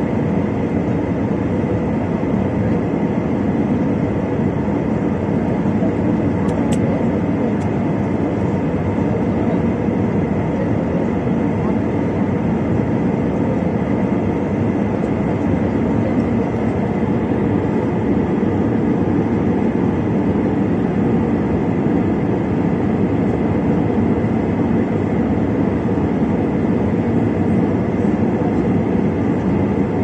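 Airliner cabin noise in flight: the jet engines and rushing air make a steady, even drone, with a faint steady whine above it.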